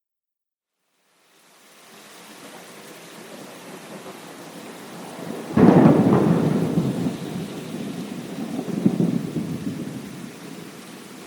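A thunderstorm recording. After a second of silence, steady rain fades in. About five and a half seconds in, a sudden thunderclap breaks into a long rumble that swells again near nine seconds and then dies back under the rain.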